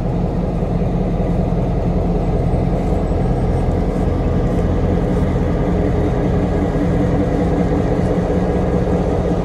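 Diesel locomotive engine running steadily at idle, a low, even drone with a constant pitch.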